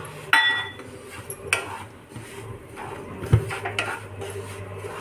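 Wooden spatula stirring and scraping semolina in ghee in a nonstick kadhai, with several sharp knocks against the pan, the loudest about a third of a second in and just past three seconds. A steady low hum runs underneath.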